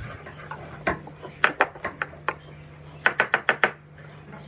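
Sharp clicks and taps from a jar of starch being handled and opened: a few separate clicks, then a quick run of about six near the end.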